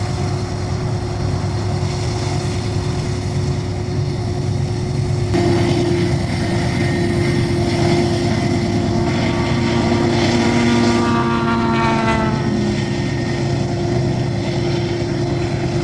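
GE diesel-electric freight locomotive running steadily under power as the train goes by, a deep engine drone with a steady hum. About five seconds in the sound grows fuller, and from about nine to twelve seconds a whine slides down in pitch.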